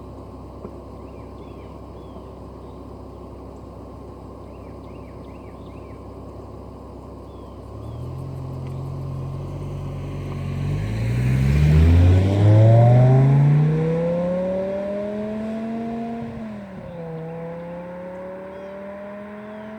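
BMW M6's V10 engine and exhaust idling steadily, then accelerating hard: the note climbs and is loudest a little over halfway, drops abruptly at a gear change near the end and climbs again as the car pulls away.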